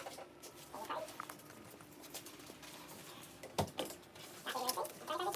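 Faint indistinct voices and phone-handling noise, with one sharp knock about three and a half seconds in.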